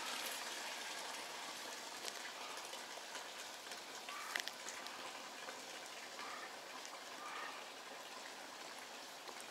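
Steady hiss of water flowing in a channel, with a few faint clicks.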